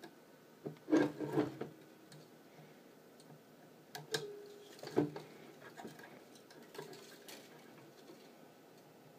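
Small wire cutters snipping the excess ukulele string ends at the headstock: a few sharp clicks, a cluster about a second in and single snips near four and five seconds, the later two each followed by a short ringing tone.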